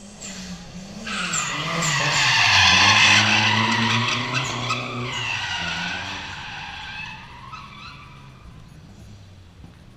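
A drift car sliding past with its tyres squealing and its engine revving, swelling about a second in, loudest around three seconds, then fading as it moves away.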